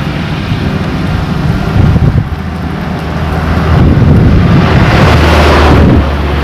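Road traffic passing close by, a low engine drone that swells for a couple of seconds and drops away near the end, with wind buffeting the microphone.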